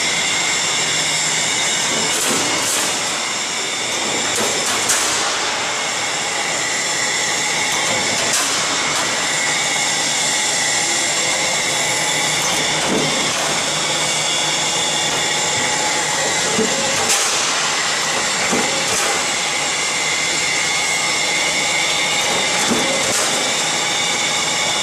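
Roll forming machine running: a steady mechanical whir and hiss with high whining tones, broken by a few short clicks.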